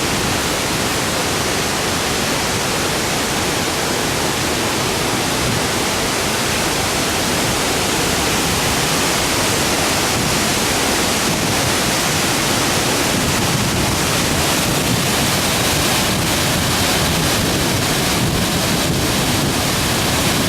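Kuang Si waterfall, water pouring and splashing in a steady, loud rush.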